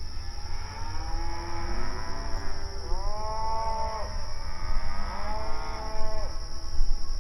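Several cows mooing, long drawn-out moos overlapping one another, the loudest about three seconds in and about five seconds in, over a steady low rumble.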